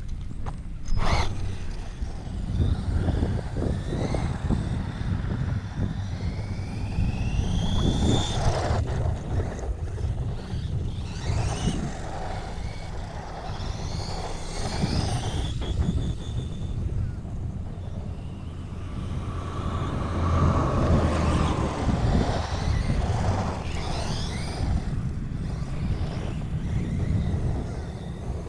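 1/16-scale RC desert truck driving in repeated runs, its brushless motor whining up and down in pitch as the throttle is worked, over a steady low rumble.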